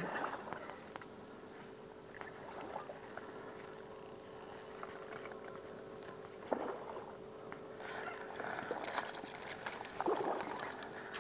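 Water splashing and plopping at the surface close to the bank, where a fishing lure is being worked on a spinning rod: a splash at the start, another about six and a half seconds in, and a busier crackling patch of splashes near the end. A faint steady hum runs underneath.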